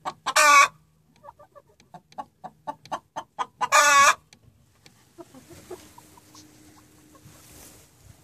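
Hen cackling: runs of quick clucks that speed up and grow louder, each ending in a loud drawn-out squawk, twice, about half a second in and about four seconds in. Hens in the nest box are trying to lay.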